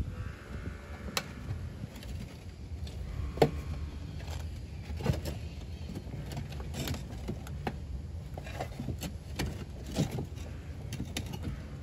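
Footsteps in rubber-soled sneakers on a clay barrel-tile roof: irregular sharp knocks and clinks of the tiles shifting underfoot, roughly one every one to two seconds, over a low rumble.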